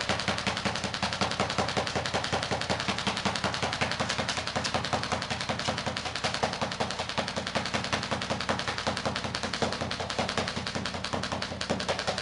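Airsoft electric rifle (G&G CM16 SRS, an M4 replica) firing on full automatic in one long unbroken burst, a fast, even rattle of shots with BBs peppering a wooden door.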